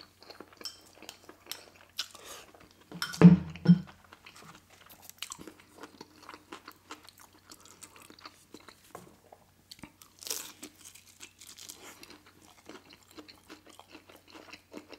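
Close-miked eating sounds: chewing with many small wet mouth clicks, and a crisp bite into a fried dumpling about ten seconds in. Two short, loud, low sounds come about three seconds in.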